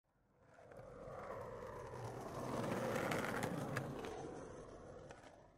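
Skateboard wheels rolling past on pavement, swelling up and fading away, with a few sharp clicks near the loudest point.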